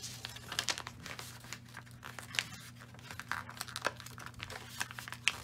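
A sheet of paper being folded and creased by hand on a tabletop, crinkling and rustling in irregular crackles as the corners of a paper airplane are pressed down.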